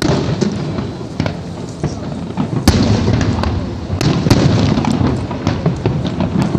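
Aerial fireworks going off: a rapid string of bangs and pops over a continuous low rumble, with the sharpest bang about two and a half seconds in.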